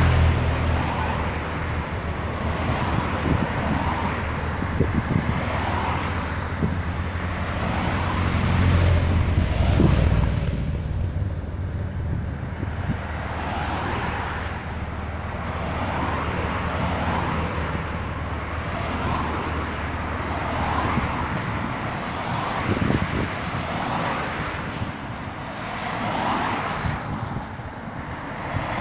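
Race team cars driving past one after another, their engines and tyres swelling and fading every couple of seconds, loudest about nine seconds in. A steady low engine hum runs underneath and stops about two-thirds of the way through.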